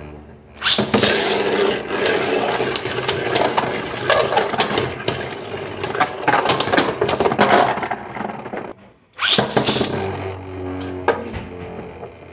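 3D-printed Beyblade spinning tops launched into a stadium, scraping and rattling as they spin and knock into each other. The clatter starts suddenly and cuts off just before nine seconds in, then starts again abruptly with a fresh launch.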